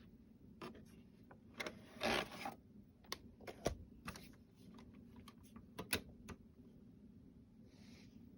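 Irregular light clicks and knocks from hands working the buttons and plastic body of an RCA CC310 VHS camcorder, with a short rustle about two seconds in.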